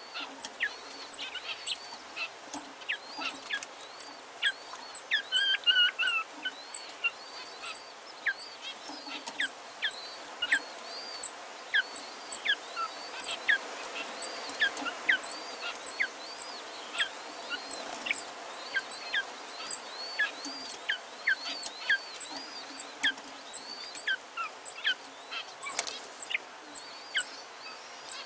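King quail chicks peeping: a continuous run of short, high peeps, each falling in pitch, about two or three a second, over steady background noise.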